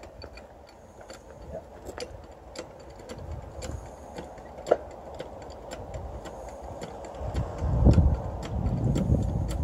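Irregular metallic clicks and taps from work on a trailer-mounted mast, one sharp click standing out about halfway through. A low rumble swells near the end and becomes the loudest sound.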